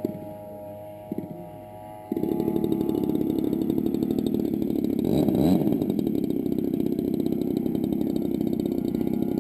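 RC model airplane's engine heard from a camera mounted on the plane. It idles with a steady tone, then about two seconds in is throttled up sharply to a loud, fast-pulsing run as the plane taxis on the ground.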